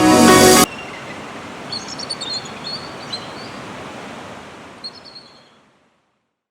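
A brief loud rush of noise at the very start, then a steady outdoor noise like surf or wind with small birds chirping a few times. The ambience fades out to silence.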